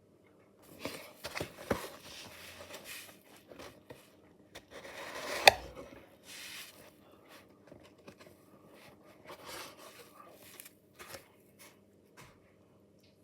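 Cardboard model box and its packaging being handled and opened: irregular scraping, rustling and tapping, with one sharp click about five and a half seconds in.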